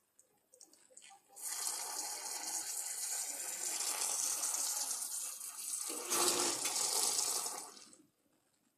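Tap water running into a container of chicken feed, starting about a second and a half in and shut off near the end, with a fuller splash for its last couple of seconds.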